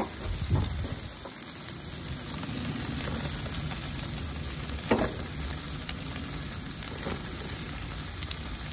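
Marinated Korean barbecue meat sizzling on a grill over open flames: a steady hiss with scattered crackles and pops, one louder pop about five seconds in.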